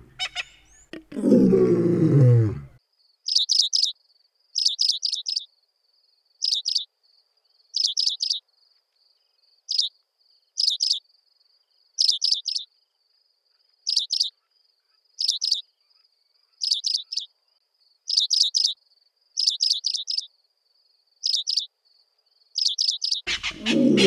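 African pipit calling: about fifteen short, quick chirping phrases, one every second and a bit, over a faint steady high tone. A deep, loud roar fills the first two and a half seconds, and another starts near the end.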